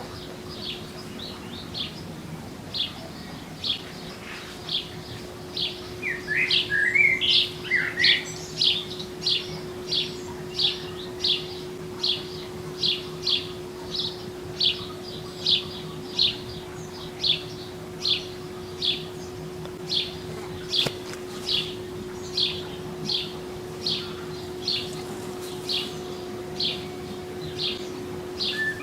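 A songbird repeating one short, high chirp a little more than once a second, with a brief warbling phrase from a bird about a quarter of the way in. Under it runs the steady hum of a whirlpool's pump.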